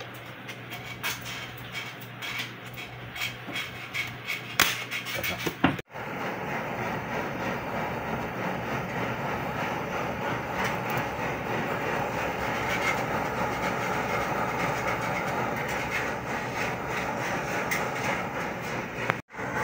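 Steel tweezers click and tap against small gold ring parts on a soldering brick for the first few seconds. Then a jeweller's soldering torch flame hisses steadily as it heats the 18k gold ring red hot for soldering.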